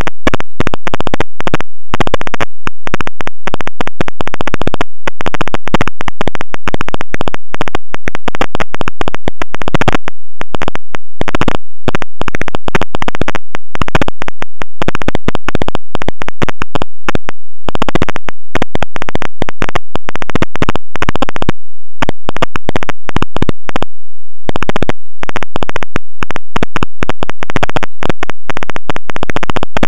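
Loud, constant crackling static that cuts out briefly many times.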